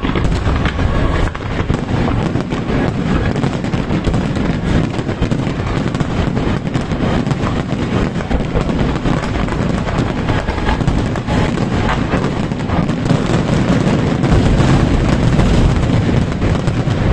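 Fireworks finale barrage: a dense, continuous run of overlapping bursts and booms with crackling, shell after shell with no break.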